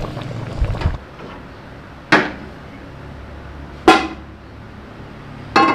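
A wooden spoon stirs boiled spinach in a steel pot for about a second. Then metal cookware gives two sharp clanks, each ringing briefly, about two seconds apart, and more clattering comes near the end.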